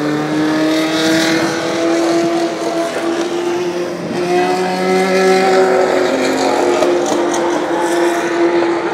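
Historic 1970s–80s Formula One cars racing past at high revs, their engine notes slowly rising in pitch as they accelerate; a second car's engine joins about four seconds in.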